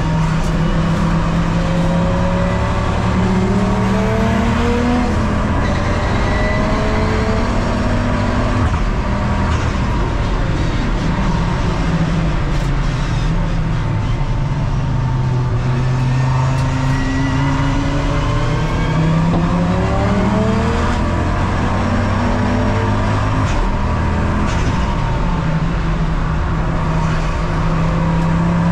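Race car engine running hard at race pace, climbing in pitch again and again as it pulls up through the gears, with one dip and pickup near the middle as it slows and accelerates again.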